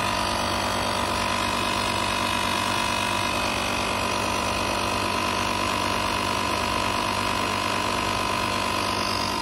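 GoMechanic 120-watt, 12-volt portable tyre inflator compressor running steadily as it pumps up a car tyre, a constant loud hum with the unit vibrating heavily.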